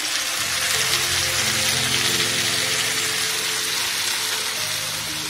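Yogurt-marinated chicken sizzling in hot oil and butter as it is tipped into a steel kadai of browned onions; the sizzle swells as the pieces land and stays strong. Background music plays underneath.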